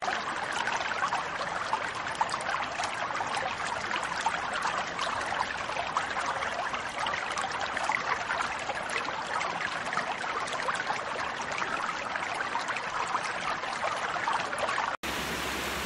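Shallow, rocky forest stream babbling and splashing over stones: a steady rush of running water that cuts off abruptly near the end.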